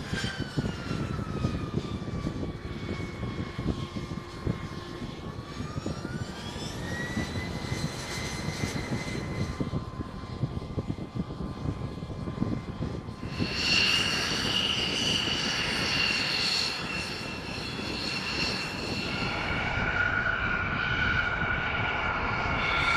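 Boeing MQ-25 Stingray's jet engine whining on the deck. Its pitch falls, then climbs about six seconds in and holds steady as the engine spools up. About halfway through it changes abruptly to a louder, higher turbine whine with several tones.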